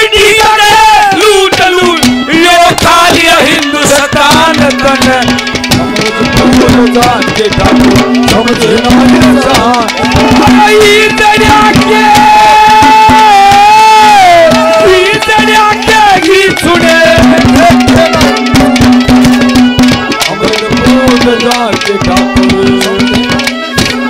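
Live Haryanvi ragni folk accompaniment, played instrumentally: tabla and drums keep a fast beat under a melodic instrument's bending, ornamented tune, over a steady held low note.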